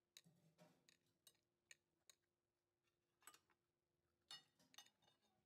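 Faint, irregular clicks and ticks of chopsticks against a porcelain plate as food is picked up, with a louder cluster of clicks a little past four seconds in.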